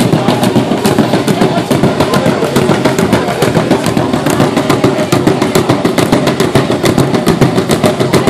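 Large Zulu dance drum beaten in rapid, even beats that keep going without a break.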